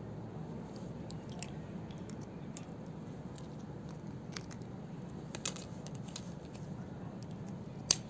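A cat biting and chewing a plastic clothes peg: scattered small clicks and crunches of teeth on plastic, with one sharp, louder click near the end, over a steady low hum.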